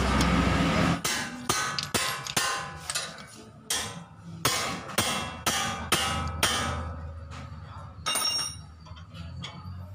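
A loud steady noise stops about a second in, followed by a string of about a dozen sharp metal clinks, each with a short ring, as loose metal parts such as lug nuts are knocked together; they thin out and fade near the end.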